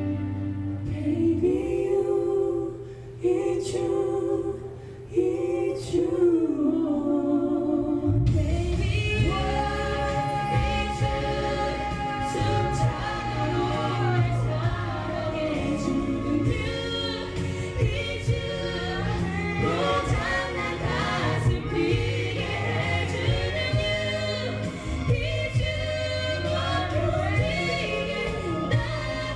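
Choir singing in layered voice parts without clear words. The texture is sparse at first and becomes much fuller about eight seconds in, when a low bass line joins.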